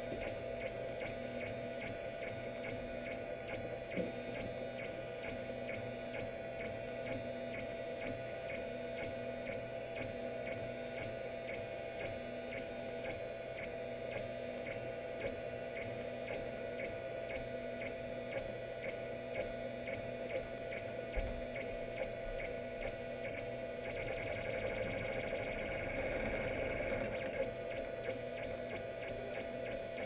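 3D printer running: its stepper motors whir in short repeated stretches over a steady fan hum, growing louder for a few seconds about four-fifths of the way in.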